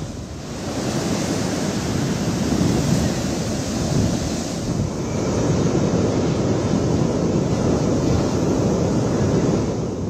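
Heavy storm surf from a cyclone-whipped rough sea, waves breaking and washing over rocks in a continuous rush, with gusty wind buffeting the microphone.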